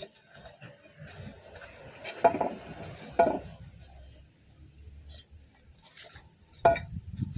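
Metal parts and tools clinking and knocking against each other, with three sharper knocks about two, three and six and a half seconds in.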